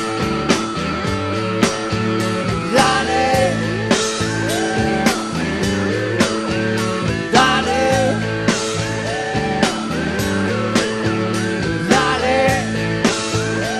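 Rock band playing live: drum kit keeping a steady beat under electric guitar and keyboard chords, with a melody line that repeats in short phrases, bending up and down.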